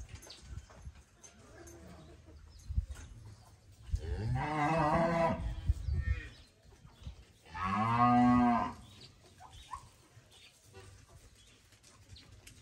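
Cattle mooing: two long moos, the first about four seconds in and lasting about two seconds, the second a shorter, louder one about eight seconds in.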